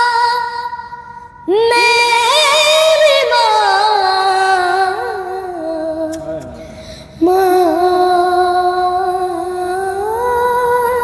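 A boy singing unaccompanied in a high voice: long held notes with vibrato and ornamented turns. The voice fades off twice, about a second in and about six and a half seconds in, and each time a new phrase comes in strongly.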